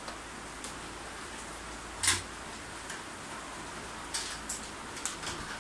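A single sharp knock about two seconds in, then a few light clicks of a plastic toy train car being handled on a wooden table, over a steady background hiss.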